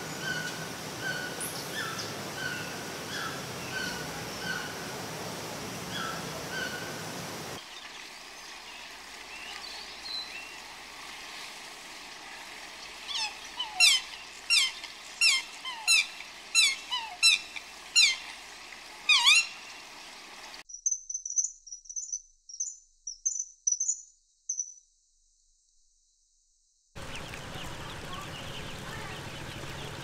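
Bird calls from separate recordings cut one after another. First a steady series of short repeated calls from a fiery-billed aracari, a small toucan. Then about a dozen loud downward-sweeping calls at roughly two a second, then a quick string of high, thin chirps, and after a brief silence a new, busier outdoor recording starts near the end.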